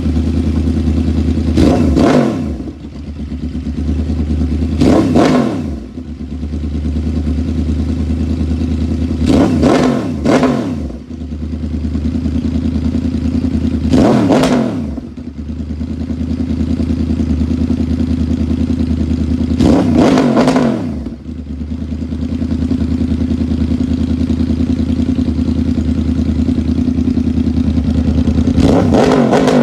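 2011 Yamaha YZF-R1 inline-four with its crossplane crankshaft and uneven 'big bang' firing order, idling with a lumpy throb and blipped sharply about six times, each rev rising and dropping back to idle.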